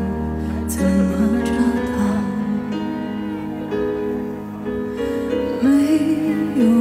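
A woman singing live into a microphone over instrumental backing. The sound comes through a concert sound system and is heard from the audience.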